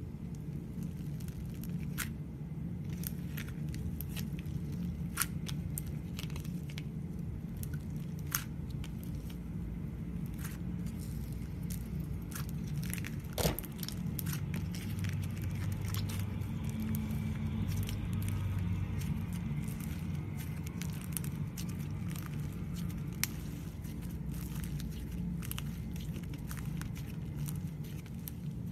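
Clay (butter) slime being mixed and poked by hand, giving irregular sticky clicks and crackling pops over a steady low hum, with one louder pop about halfway through.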